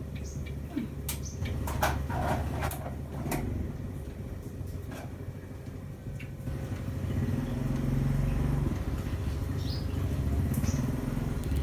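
A low motor rumble that swells about seven seconds in, with scattered light clicks and knocks of things being handled in the first half.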